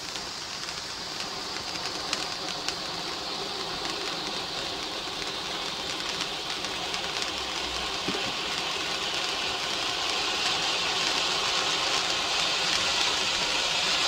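Conic firework fountain spraying sparks: a steady hissing rush with scattered sharp crackles, growing gradually louder as the fountain builds up.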